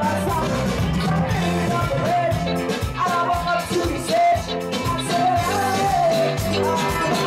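Live band playing an upbeat song with a steady beat and bass, a lead melody line riding on top.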